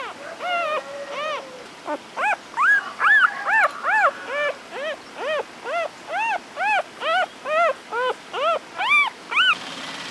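Very young puppies whimpering: a quick run of short, high squeals, each rising and then falling in pitch, about two to three a second, with one longer drawn-out cry near the start.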